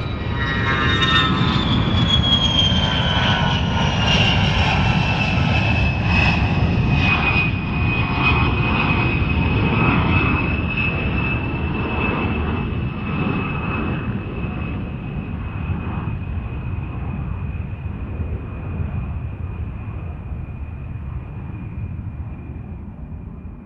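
Airplane flying past: a low engine rumble with a high whine that falls in pitch over the first few seconds, then steadies as the sound slowly fades away.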